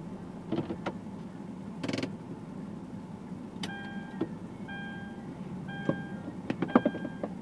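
Inside a stationary car: a steady low hum with a few clicks and a short rustle, then from about halfway a car's warning chime beeping about once a second, mixed with more clicks near the end.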